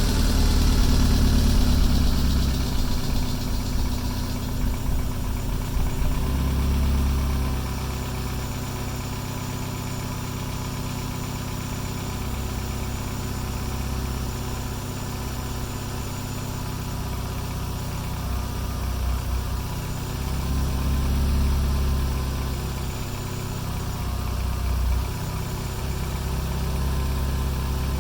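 Renault Megane's freshly built forged engine idling just after its first start-up, louder for the first several seconds and then settling to a steady idle with small swells in level.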